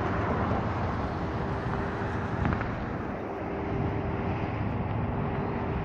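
Steady road traffic noise with a constant hum running under it.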